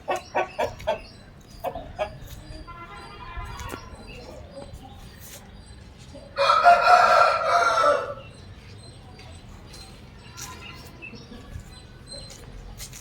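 Aseel chicken sounds. Rapid clucking in the first second, a fainter call around three seconds in, and one loud rooster crow lasting about a second and a half, starting a little over six seconds in.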